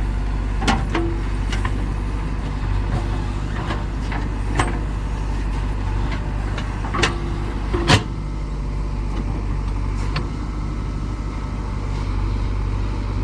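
JCB 3DX backhoe loader's diesel engine running steadily at work, with about five sharp metallic clanks, the loudest about eight seconds in, and a brief whine twice.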